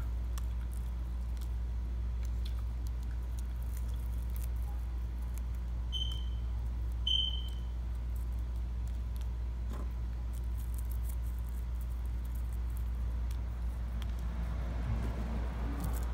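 Steady low hum under faint crackles and rustles of fingers crumbling dried cannabis buds into a tobacco-leaf wrap. Two short high chirps come about six and seven seconds in.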